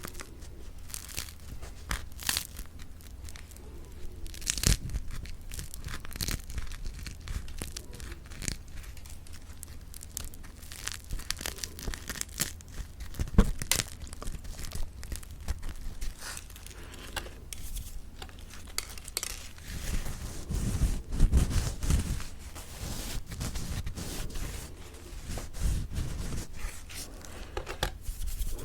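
Close-miked crackling and tearing of crispy mocha bread, a dense run of small cracks with a few louder crunches.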